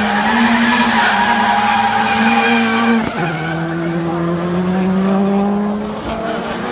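Drift car's engine held at steady revs while its tyres squeal and slide through the corner. About three seconds in the engine note drops sharply, then climbs slowly again.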